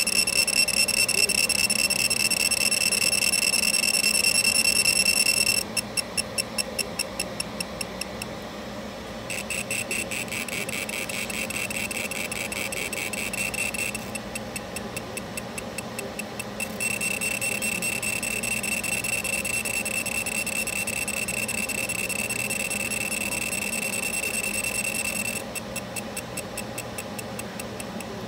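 Laser engraving machine etching a metal gun part: a steady high-pitched whine that several times turns into rapid, even ticking pulses, about five seconds in, halfway through and near the end, then returns to the whine. A low steady hum runs underneath.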